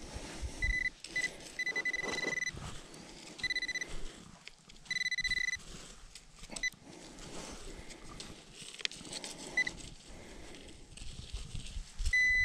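Handheld metal-detector pinpointer beeping in short and longer bursts of one high tone as it is swept through loose soil, signalling a small metal target close by; near the end the beeps come fast and close together as it closes in on the target. Hands scrape and crumble the dry dirt between beeps.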